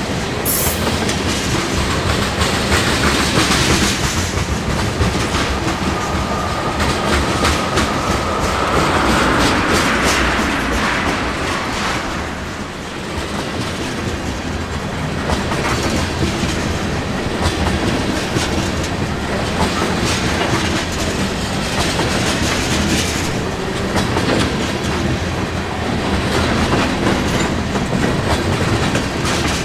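A CSX freight train's cars rolling past, steel wheels clacking over the rail joints, with a brief high squeal around seven to ten seconds in.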